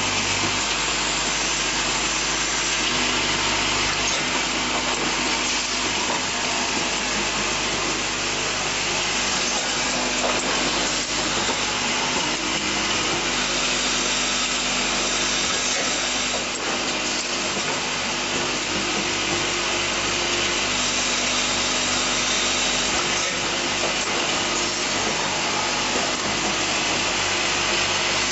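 Automatic assembly and riveting machine running: a steady, even mechanical noise with a few faint hums and an occasional faint click.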